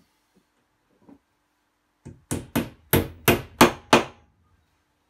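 Hammer tapping at a wooden wall rail with black metal straps: six quick, sharp blows, about three a second, each with a short ring, after a faint knock.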